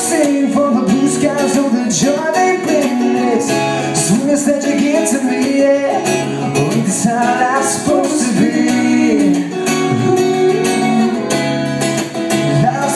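Acoustic guitar strummed with singing: a song played live through the sound system.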